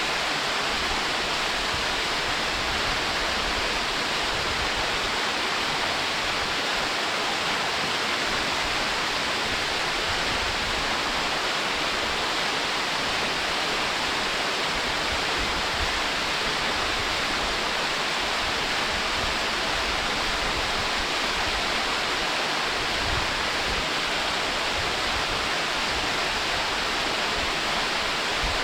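Waterfall cascading steadily over rock, a dense, unchanging rush of falling water.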